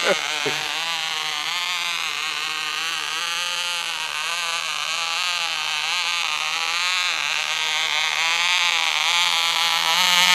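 Vintage OK Cub .049 two-stroke glow engine on a model glider buzzing steadily in flight. Its pitch wavers up and down as the plane moves about, and it grows louder near the end as the plane comes down close by. The motor is one the flyers call gummed up.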